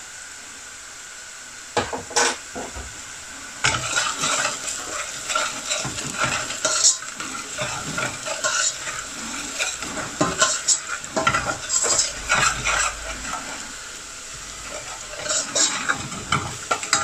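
Metal spoon scraping and clinking against a metal saucepan while stirring onions fried in olive oil with ground turmeric and coriander, over a steady sizzle of the hot oil. The pan sizzles alone at first; the stirring starts about two seconds in and goes on in irregular scrapes, easing off for a moment near the end.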